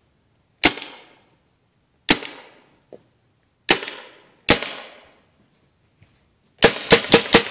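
CO2-powered paintball gun firing, running on a CO2 tank that is getting low: four single shots a second or so apart, then a rapid string of about five shots near the end, each a sharp crack that fades out briefly.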